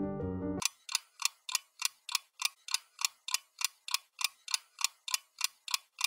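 Background music stops about half a second in, followed by steady, evenly spaced ticking at about three ticks a second.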